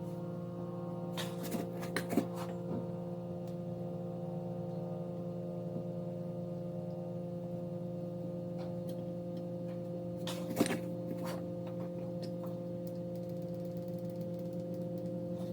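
Steady electrical hum made of several fixed tones, with a few sharp, light clicks and taps of small tools on the board, a cluster about a second in and another about two-thirds of the way through.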